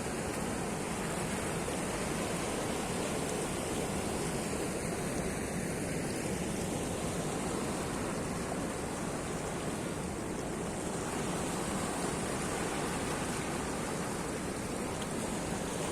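Steady rush of surf from a rough sea.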